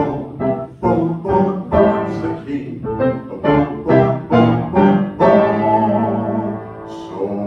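Piano playing an instrumental break of rhythmic, struck chords, settling into a held chord about five seconds in.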